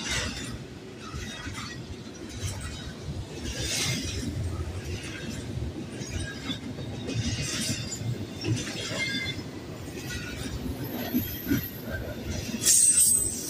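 Double-stack container freight train rolling past: a steady rumble of wheels on the rails, with metallic squeals and clanks flaring every second or two and a loud burst near the end.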